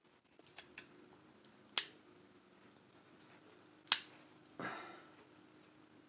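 Boiled lobster claw shell cracked apart by hand: a few light clicks, then two sharp loud cracks about two seconds apart, followed by a short, softer rasping noise.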